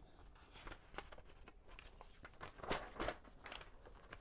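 Faint scattered clicks and rustles over quiet room tone, loudest about two and a half to three seconds in.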